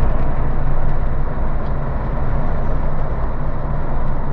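Steady road and engine noise inside a moving vehicle's cabin: a constant low rumble with a hiss of noise over it.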